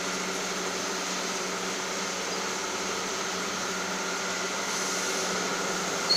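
Chin chin snack machine (dough sheeting and cutting rollers) running: a steady mechanical hum with a constant whine over a hiss. A short, high squeak near the end.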